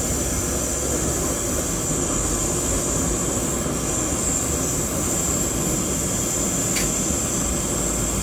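Steady roar of a gas burner under a pan of simmering snails, with a high, steady insect buzz over it.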